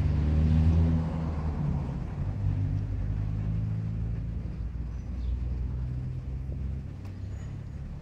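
A car engine running with road noise, a low steady hum that slowly gets quieter.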